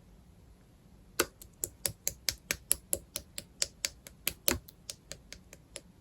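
Slime being played with by hand, making a quick series of about twenty sharp clicking pops, about four a second, starting about a second in and growing fainter near the end.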